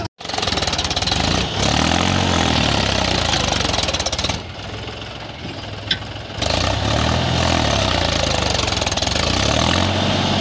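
Mahindra 275 DI XP Plus tractor's three-cylinder diesel engine revving hard under load as it strains to drag a heavily loaded trolley out of soft ground. The revs rise and fall, drop for about two seconds near the middle, then pick up again.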